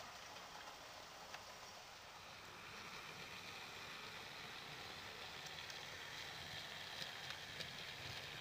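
Model railway locomotive, a BR Standard Class 5 steam engine model, running past along the track: a faint, steady rumble and hiss of its motor and wheels that grows louder as it comes closer, with a few light clicks in the second half.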